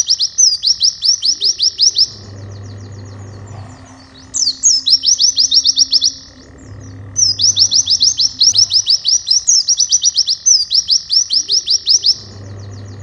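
White-eye (pleci) song: fast trains of high, down-slurred chirps, about five or six a second, in repeated bursts of about two seconds with short breaks between. Background music with a steady high tone runs underneath.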